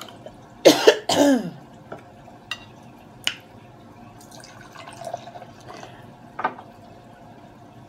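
A person clearing her throat about a second in, twice in quick succession, then a few light clicks and taps.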